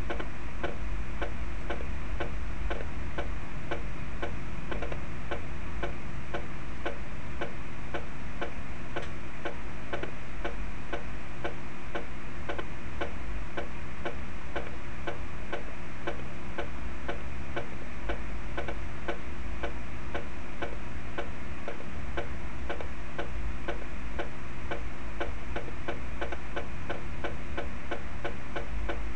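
Score-playback snare drum playing an exercise as an even, steady stream of dry, tick-like strokes, over a faint steady hum.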